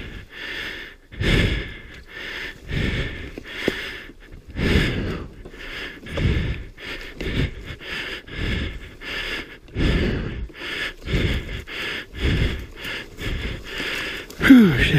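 A person's heavy, laboured breathing close to a helmet microphone, about one breath a second, with a short falling pitched sound near the end.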